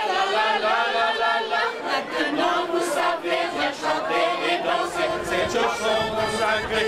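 A group of men and women singing a French folk song together, with an accordion.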